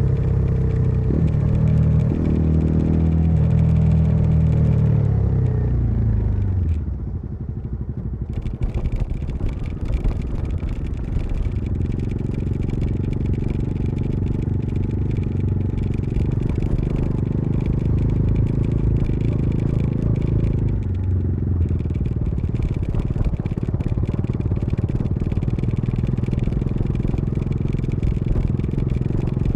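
Bajaj Dominar 400 motorcycle's single-cylinder engine and exhaust on the move. It pulls hard for the first few seconds, its pitch stepping, then falls away as the throttle is rolled off about six seconds in. After that it settles into a steady cruise with one brief dip in pitch around twenty seconds in, over steady wind and road noise.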